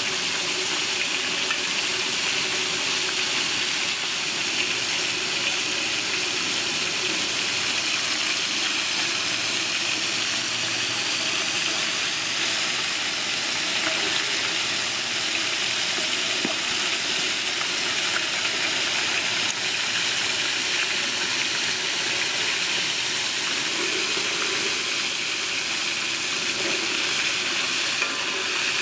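Steady sizzling of food frying in hot oil, an even hiss that does not let up.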